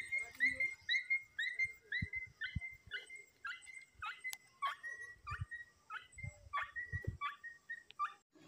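An animal making a run of short, high-pitched whining calls, about two a second, each with a quick bend in pitch. A few dull low knocks sound underneath.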